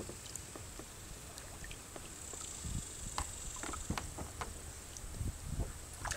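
A hooked largemouth bass splashing at the surface beside a plastic kayak, with scattered small splashes and ticks, then several dull knocks on the hull as the fish is drawn alongside and lifted from the water.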